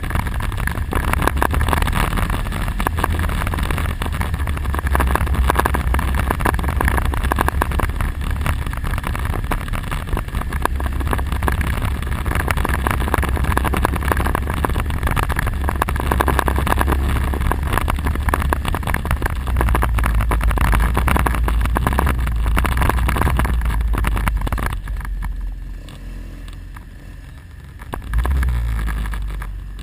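ATV engine running under way, with wind buffeting the microphone. The sound drops noticeably for a few seconds near the end, then rises again.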